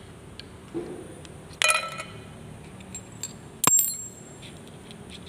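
Broken pieces of hardened steel clinking against each other and the trimming die as they are handled: two sharp metallic clinks with a short ring, about a second and a half in and again two seconds later, after a faint dull knock.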